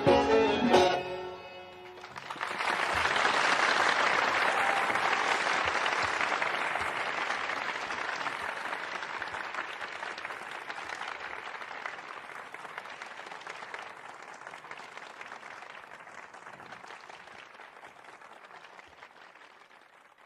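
A Persian traditional music ensemble plays its final notes, which stop about a second in. An audience then breaks into applause that swells quickly and slowly dies away.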